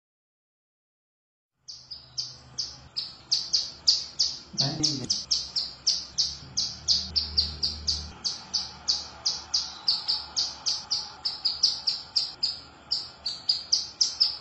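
Female ciblek gunung, a prinia, calling to a male: a fast, even string of short, sharp high notes, about three a second, starting after a second or two of silence. A brief low sound breaks in about five seconds in.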